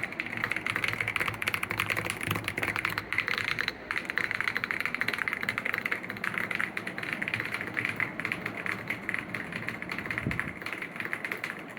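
Fast, continuous typing on a Mount Everest keyboard, a dense stream of rapid key clicks at speed-test pace (about 166 words per minute), with a brief pause about four seconds in.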